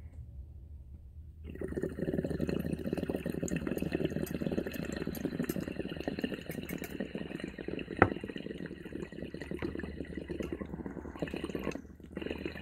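Water bubbling through a glass dab rig as someone draws a long hit through it. The bubbling starts about a second and a half in and goes on steadily. There is one sharp click about eight seconds in. Near the end the bubbling stops briefly, then comes back for a second, shorter pull.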